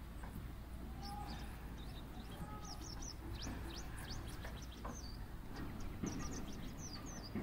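Small birds chirping in quick, high, downward-sliding notes that come in clusters, with a few lower arched notes among them, over a steady low rumble.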